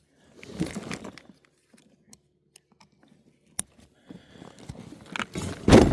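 Fishing tackle being handled: rustling and small clicks, with one sharp click about three and a half seconds in. A louder, rough burst of noise comes near the end.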